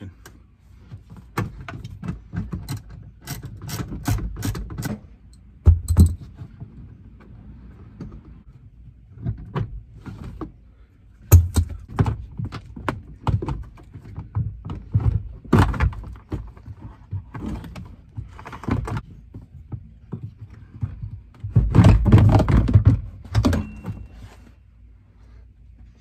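Socket ratchet clicking in quick runs as the last subwoofer mounting screw is turned out, with knocks against the plastic trim. Near the end comes a louder burst of plastic rattling and scraping as the factory JBL subwoofer's plastic enclosure is worked free of the panel.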